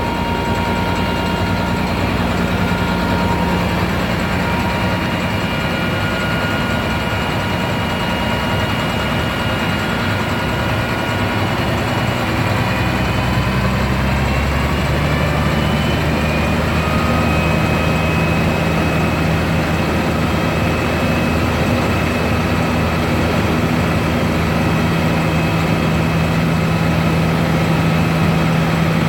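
Heavy diesel engine running steadily. Between about 12 and 15 seconds in it speeds up to a higher pitch and then holds there.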